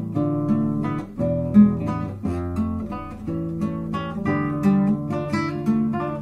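Instrumental music: strummed acoustic guitar chords over sustained low bass notes, with a steady rhythm.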